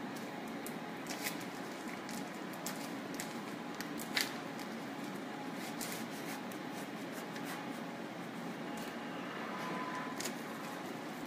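Steady hum and hiss of room ventilation in a surgical suite, with scattered small clicks and ticks from handling, the sharpest about four seconds in.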